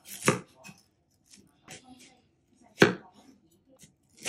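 Chef's knife slicing through an onion and hitting a wooden cutting board: several separate crisp chops at an uneven pace, the loudest about three seconds in.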